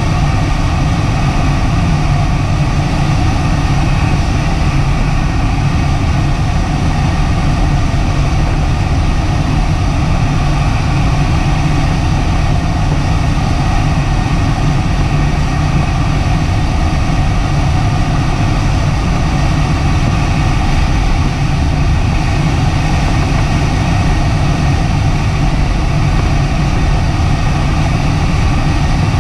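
Steady rush of airflow over the canopy, heard inside the cockpit of a DG-800 sailplane in flight. It is heaviest in the low end, with faint steady tones above it.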